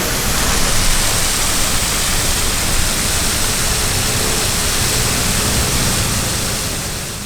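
Water spraying and splashing steadily as a loud, even rush, fading out near the end.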